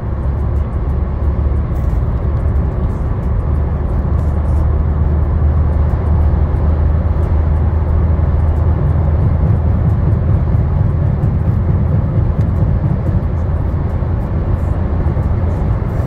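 Opel Astra K on a motorway test drive, heard from inside the car: a steady low engine and road drone.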